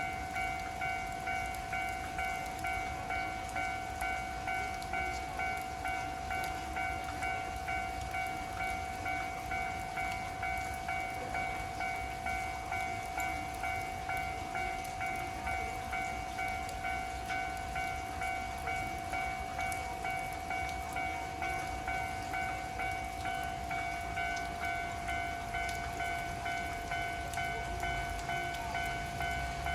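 Japanese level-crossing warning bell ringing steadily at about two strikes a second, over the hiss of heavy rain. A train's low rumble grows in near the end.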